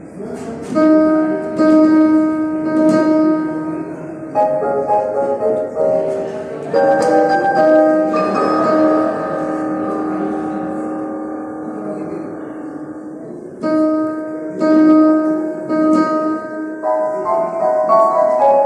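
Yamaha digital piano playing a march: full chords struck and held, changing every second or two. There is a brief lull about two-thirds of the way through, then quicker runs of notes near the end.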